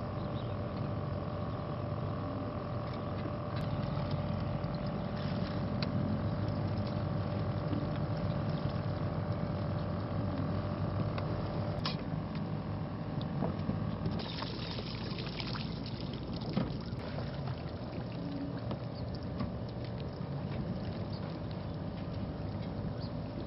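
Steady low rumble and mechanical hum, like boat engines on a river. About fourteen seconds in, a rush of water for a couple of seconds, as of water and fish poured from a bowl into the river.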